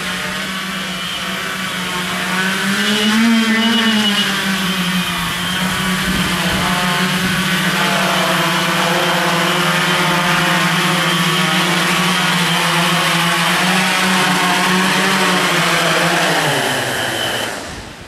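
Hexacopter's six electric motors and propellers running with a steady buzzing hum. It rises briefly in pitch about three seconds in, then falls in pitch near the end as the craft comes down and stops.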